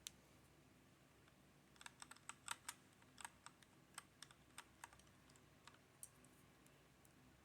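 Keys of a HyperX Alloy Origins Core mechanical keyboard with linear red switches being pressed: one click, then an irregular run of about fifteen quick clicks, thinning out near the end.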